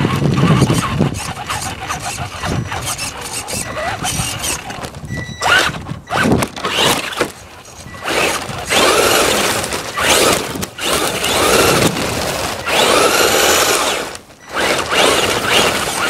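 Onboard sound of a Traxxas Slash 2WD RC truck driving fast. Over the first few seconds the chassis rattles and clatters over brick paving. After that the motor and drivetrain whine rises and falls in pitch again and again as the truck speeds up and slows.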